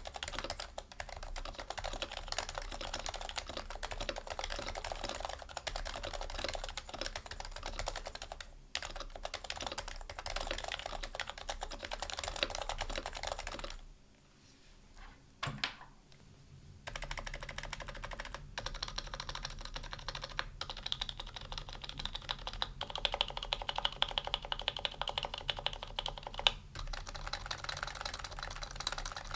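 HHKB Pro Hybrid Type-S keyboard, with Topre switches on 45 g domes and stock keycaps, being typed on steadily in a fast stream of keystrokes. The typing stops for about three seconds in the middle, broken by one lone keypress, then picks up again.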